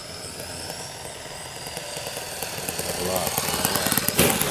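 A radio-control model plane's YS-120NC four-stroke glow engine running at low throttle on the landing approach, growing louder as it comes in. Near the end a single sharp thump, followed by rapid clattering.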